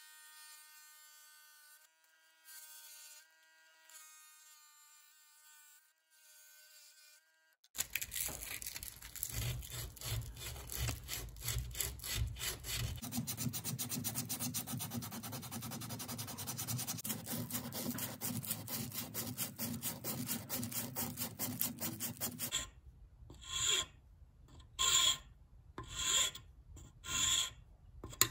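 Hand-shaping a wooden knife handle clamped in a vise: fast rubbing strokes on the wood, then from a little past two-thirds of the way in, separate slower strokes of a round file, about one a second. For the first several seconds there is only a faint steady high whine.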